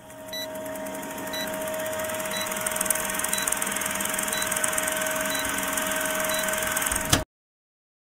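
Old-film countdown sound effect: a film projector running with a steady whirr, and a short high beep once a second, stopping abruptly about seven seconds in.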